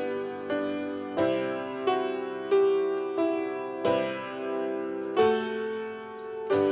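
Instrumental introduction to a hymn: piano striking chords at an even pace, a new chord roughly every two-thirds of a second, each ringing and fading under the next.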